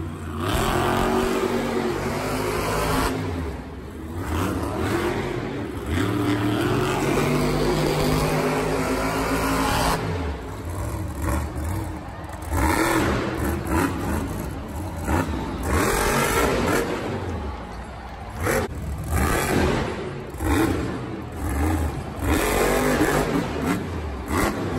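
Monster truck engines, supercharged V8s, revving up and dropping back again and again as the trucks drive and pull wheelies. The sound changes abruptly several times.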